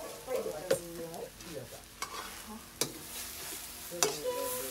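Metal ladle stirring and scraping food in a steel wok over a wood fire, with several sharp clanks of the ladle against the pan over a light frying sizzle.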